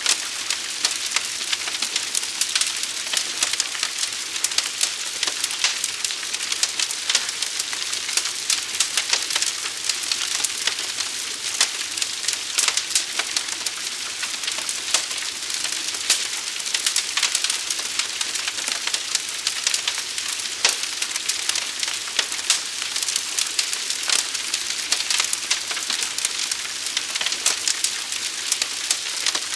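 Forest fire burning: a steady hiss thick with sharp crackles and pops.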